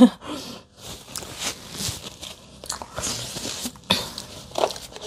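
Close-miked mouth sounds of chewing and small clicks, mixed with the rustle of a paper tissue wiped over the face.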